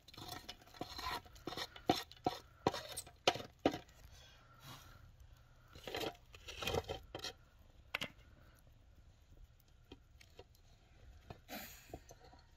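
A stick scraping and knocking embers and ash off the metal lid of a cast-iron pot set in an open wood fire: an uneven run of scrapes and clatters that thins out after about eight seconds. Near the end the lid is gripped with a cloth, giving a brief rattle.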